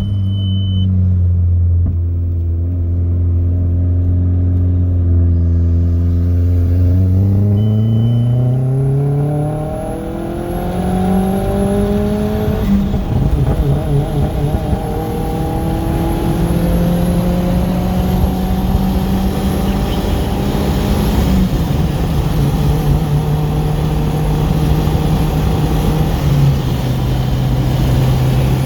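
Audi A4 B5's 1.8T turbocharged four-cylinder engine, K04 turbo on a custom tune, running at steady revs. About seven seconds in, the revs climb smoothly for a few seconds, then hold higher with a few small drops in pitch. The owner reports the engine misfiring.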